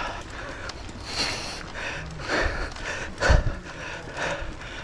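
A mountain biker breathing hard from exertion, with heavy breaths about once a second, and a few low thumps from wind or trail bumps on the camera microphone.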